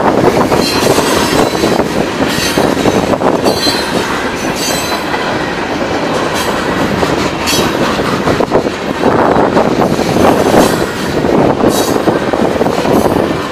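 Freight train cars rolling past at close range: a steady rumble of steel wheels on rail with repeated clacks over the rail joints and brief high wheel squeals.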